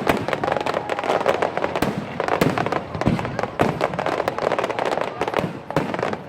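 Aerial fireworks bursting in quick succession, many sharp bangs and crackles overlapping one another.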